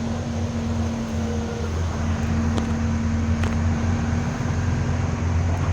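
Bus engine running, a steady low drone with a steady tone held above it and a few faint ticks.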